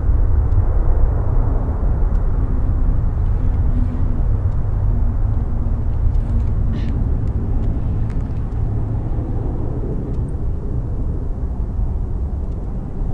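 Boeing 767-300 airliner's twin jet engines at takeoff thrust during the takeoff roll, a loud, steady, deep rumble that slowly fades as the aircraft speeds away down the runway.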